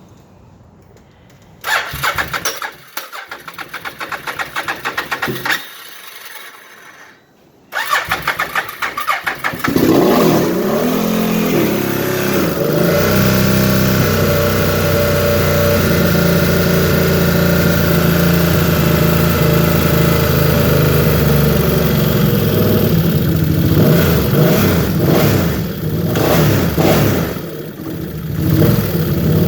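Can-Am Outlander 800 ATV's V-twin engine being cranked by the electric starter in two tries, catching on the second about ten seconds in. It revs briefly, then runs steadily.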